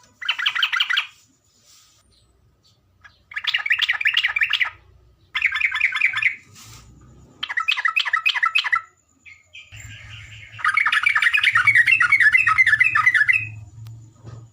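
Trocok (trucukan, yellow-vented bulbul) singing in five bursts of quick, bubbling chattering notes, the last burst the longest, recorded as masteran song for training caged birds.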